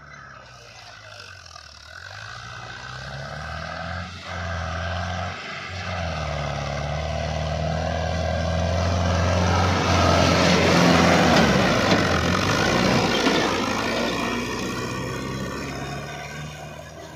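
Farmtrac 6055 PowerMaxx tractor's diesel engine working under load as it pulls a 9-foot rotavator through dry soil, mixed with the churning of the rotor blades. It grows louder as the tractor comes closer, is loudest about two thirds of the way in, then eases off.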